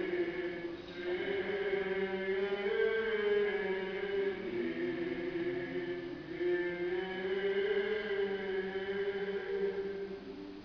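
Church choir chanting an Orthodox liturgical hymn, a slow melody moving over a steady held lower note, fading away near the end.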